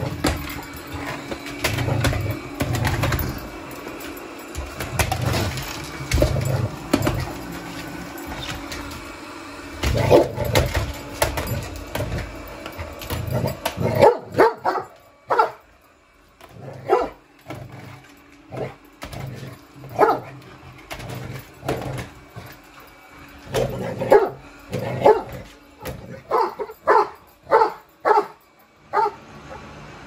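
A dog barking at a robot vacuum. For the first half there is a continuous noisy jumble with low thumps; after that come short, sharp barks in uneven volleys of two to four.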